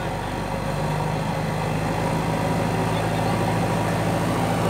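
Backhoe loader's diesel engine running steadily as the machine moves forward with its front bucket lowered.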